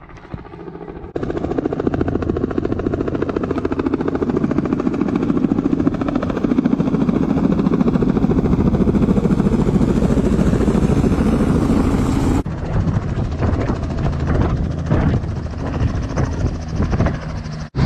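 Small two-bladed helicopter flying in low and overhead, its rotor chopping loudly, then sitting on the ground with the rotor still turning. The sound jumps abruptly about a second in and again about two-thirds of the way through.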